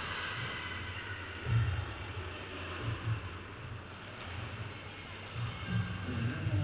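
Roller skate wheels rolling on a sports-hall floor: a steady low rumble with a few thumps, under faint voices.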